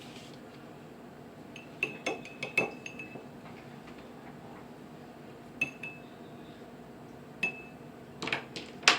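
Light clinks of a paintbrush tapping against a hard dish, each with a brief high ring: a cluster about two seconds in, a pair near six seconds, one at seven and a half, and several more near the end.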